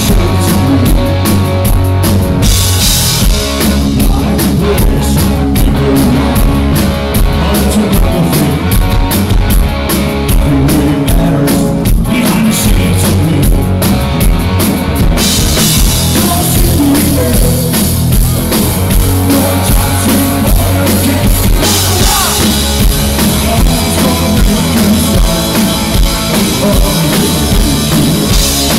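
A live rock band playing loudly: drum kit, electric guitars and a lead singer. The cymbals come in much louder for several seconds about halfway through and again near the end.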